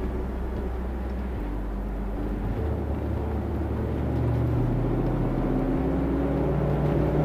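Maserati GranTurismo MC's V8 heard from inside the cabin while driving. The engine note and level rise gradually from about halfway through as the throttle is pressed lightly.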